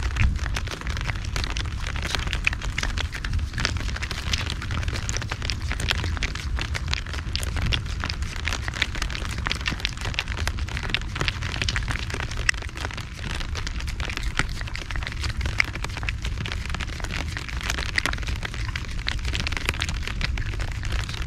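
Heavy typhoon rain pattering: a dense, irregular crackle of drops hitting surfaces over a steady low rumble.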